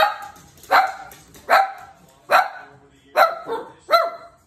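Cavalier King Charles spaniel barking over and over in alarm, about one bark every 0.8 seconds, six barks in all. The dogs are scared of their owner dressed up as a dog.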